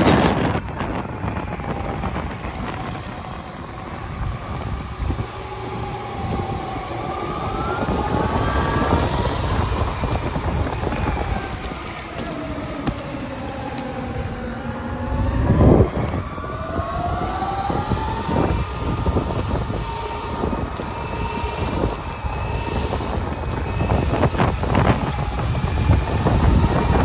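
Electric skateboard motors whining, the pitch rising and falling slowly with the board's speed, over wheels rumbling on rough concrete and heavy wind buffeting on the microphone. A louder rush comes a little past halfway.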